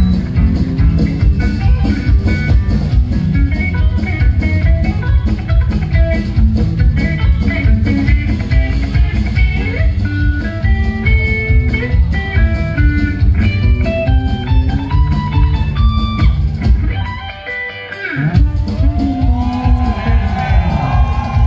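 Live electric guitar solo in chicken-pickin' style, fast runs of short, snapping notes over a rock drum kit. About seventeen seconds in the band drops out briefly, then the guitar comes back with long bent notes that slide up in pitch.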